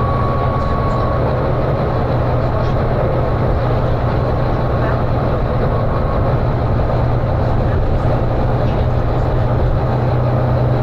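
Volvo B9TL double-decker bus's six-cylinder diesel engine running hard and steady at cruising speed, heard from inside the bus as a constant low drone with road and body noise: the engine thrash the bus is known for.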